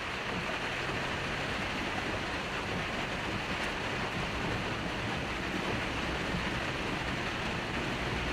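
Steady rush of heavy rain and floodwater around a Suzuki Jimny JB23 wading along a flooded road, with the engine's low hum underneath.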